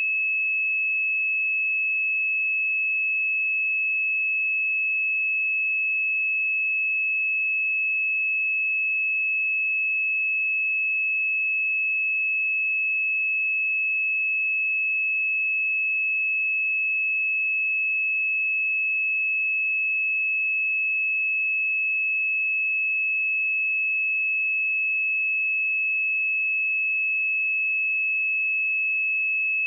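A steady 2592 Hz sine test tone: one pure, fairly high-pitched note held unchanged at constant level, used to check speakers and headphones.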